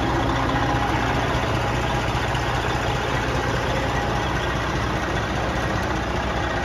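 Detroit Diesel Series 60 inline-six diesel engine of a 2000 Freightliner truck idling steadily.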